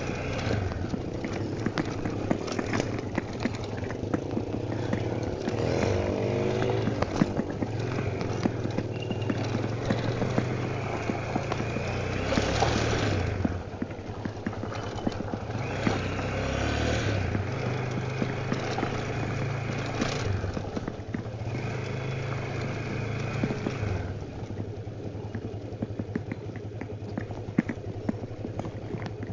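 Honda Tornado 250's single-cylinder four-stroke engine running under way, its note rising and falling with the throttle, most clearly a swell and drop about halfway through.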